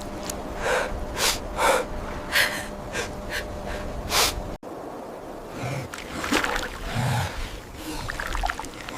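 A person gasping for breath, in quick, hard breaths about two a second. Partway through the sound cuts abruptly to softer, scattered noises.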